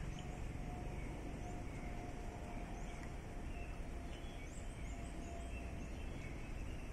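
Outdoor background ambience: a steady low rumble with a few faint high bird chirps and a faint thin steady tone through most of it.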